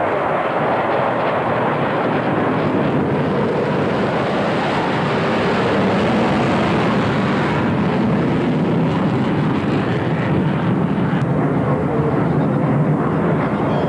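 Military jet fighters flying overhead in formation: a loud, steady jet engine rumble, which shifts abruptly about eight seconds in as another pass begins.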